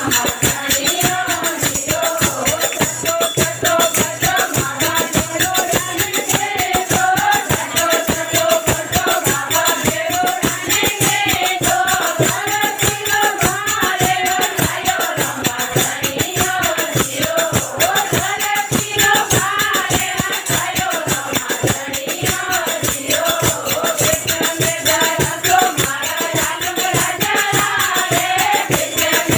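A group of women singing a Marwari devotional bhajan together, accompanied by a dholak drum beating a steady rhythm and a jingling, rattle-like percussion.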